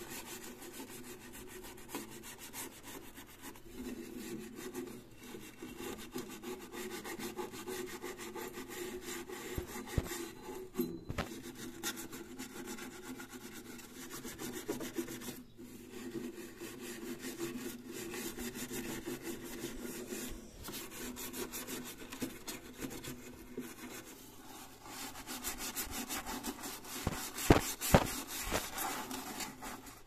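Steel wool scourer scrubbing the metal inside an air fryer's cooking chamber, a continuous scratchy rubbing in repeated strokes, with a few sharp knocks near the end.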